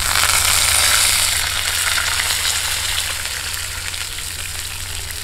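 Water poured into a frying pan of hot oil with fried garlic and crushed dried red chillies, sizzling loudly the instant it hits and then slowly dying down as it keeps pouring.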